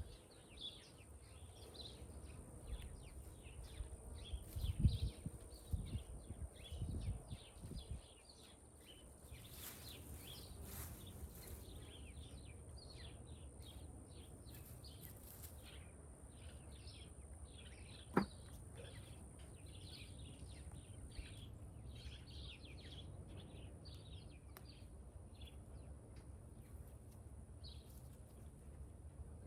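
Small birds chirping over and over, short quick calls all the way through. Low thumps and rustling come in the first eight seconds, and a single sharp click about eighteen seconds in.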